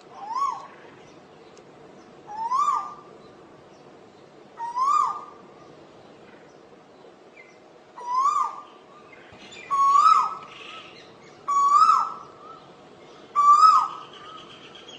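Asian koel calling: seven loud two-note calls about two seconds apart, each rising then dropping sharply. The series grows louder and slightly higher in pitch as it goes on.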